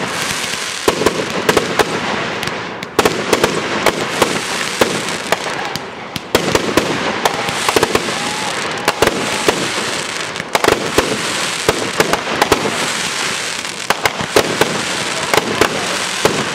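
Consumer aerial fireworks firing and bursting overhead: a dense, unbroken run of sharp pops and bangs, several a second.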